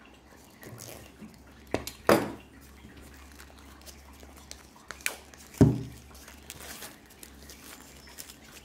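Plastic shrink wrap being cut and peeled off a cardboard Blu-ray slipcase, with light crinkling and several sharp knocks and taps as the case is handled; the loudest knocks come about two and five and a half seconds in.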